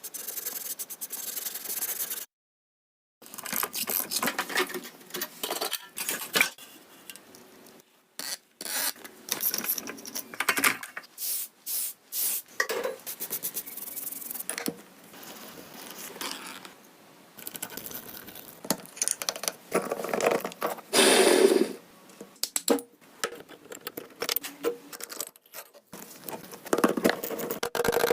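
Metal tools and bike parts clinking, scraping and rattling in irregular bursts, with a brief dead-silent gap about two seconds in.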